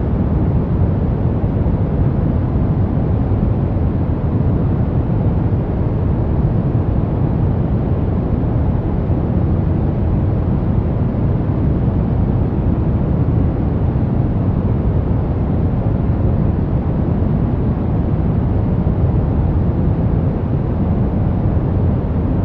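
Steady, unchanging brown noise: a deep, rumbling hiss strongest in the bass and rolling off in the treble.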